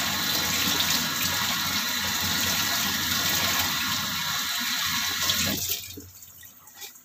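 Steady rush of water running from a kitchen tap, shut off about six seconds in.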